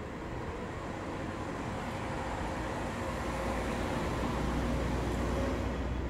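Steady rumble of road traffic, growing a little louder in the second half.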